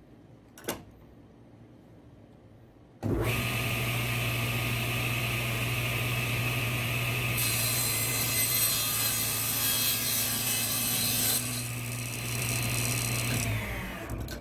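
Table saw switched on, its motor starting with a steady hum. The blade then cuts through wood for about four seconds, harsher and brighter while in the cut. Near the end the saw is switched off and winds down.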